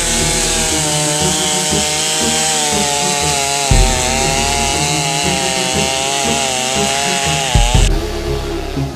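Chainsaw running at high revs, its pitch wavering and dipping as it cuts wood, then cutting off near the end. Background music with a steady beat plays underneath.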